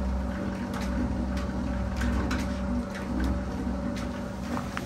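Water-mill-driven gear train and belt shafting running: a steady low hum with irregular knocks and clacks from the gears and pinions.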